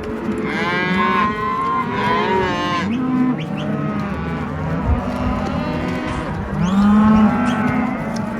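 A herd of beef cattle on a drive, many cows mooing and bawling at once, several long calls overlapping one another.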